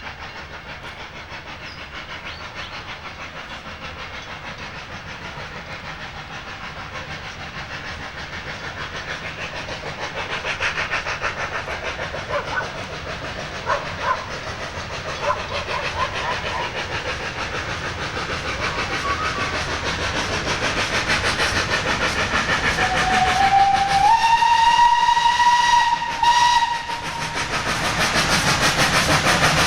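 South Australian Railways F-class steam tank locomotive No. 251 working a train, its rapid exhaust beats growing steadily louder as it approaches. About 23 seconds in, its steam whistle sounds for about three seconds, sliding up in pitch as it opens and cutting off sharply, and then the loud chuffing continues close by.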